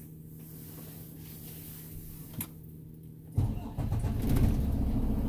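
Semi-truck's diesel engine being started with the clutch pushed in and the gearbox in neutral: a steady low hum, then about three and a half seconds in the engine catches with a sudden loud burst and settles into a steady idle.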